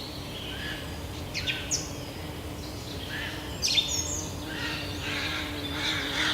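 Forest birds calling and chirping in a mixed chorus: scattered short whistled notes, with quick downward-sweeping chirps about a second and a half in and again near four seconds. A faint steady low hum runs underneath.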